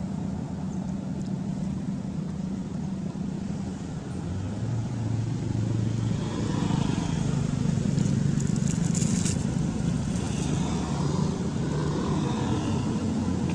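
A steady low motor rumble, growing a little louder about halfway through.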